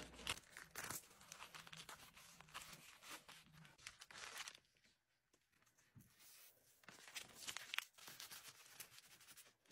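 Faint rustling of a plastic shipping mailer and paper being handled and folded, in short scrapes, with a lull about halfway through.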